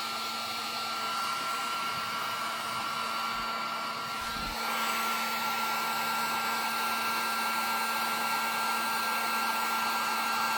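Electric heat gun blowing steadily, its fan noise carrying a constant whine and hum, a little louder from about halfway through. It is heating a solder-seal heat-shrink connector until the solder ring melts into the wires.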